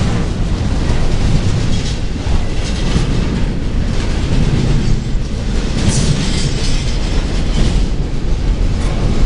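Double-stack intermodal container freight train rolling past at close range: a steady, loud rumble of the cars, with occasional sharper clicks from the wheels.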